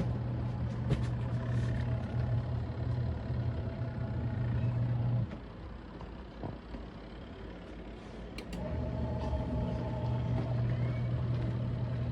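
Motor of an Auertech portable twin-tub washing machine running with a steady hum, stopping about five seconds in and starting again about three seconds later, in the on-off rhythm of a wash cycle.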